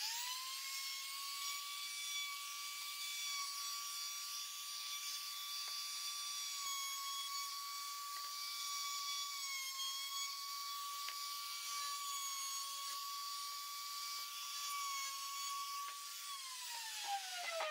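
Compact trim router motor running at high speed with a steady whine, coming up to speed at the start and dipping slightly in pitch a few times. About 16 s in it is switched off and winds down in a falling whine.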